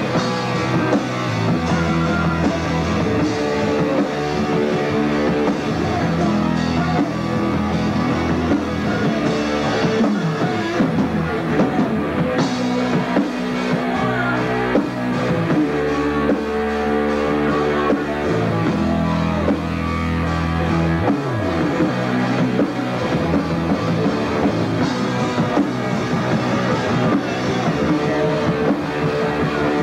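Punk rock band playing a song live: loud distorted electric guitar chords over bass and a drum kit.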